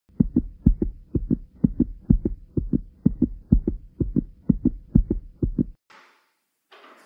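Heartbeat sound effect: low thumps in lub-dub pairs, about two beats a second, stopping abruptly near the end.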